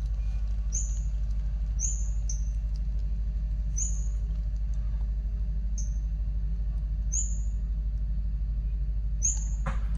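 Short high-pitched chirps, repeated irregularly about once a second, over a steady low rumble.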